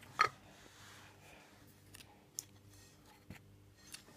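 A few light taps and clicks of small things being handled on a table, the sharpest one just after the start, over quiet room tone.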